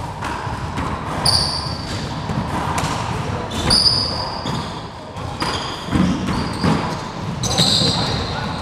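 Four-wall handball rally: a rubber handball is slapped by gloved hands and smacks off the walls and hardwood floor again and again, each hit echoing around the enclosed court. High sneaker squeaks on the floor come three times.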